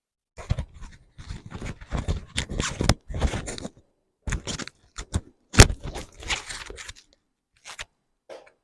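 Irregular bursts of rustling and scraping, with one sharp crack a little past halfway that is the loudest sound.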